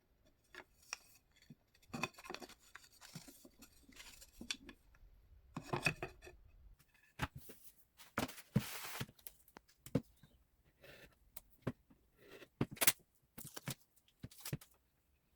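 Wooden workpieces and Domino tenons being handled and fitted by hand: a series of irregular knocks and clicks, with a short rasping scrape about halfway through.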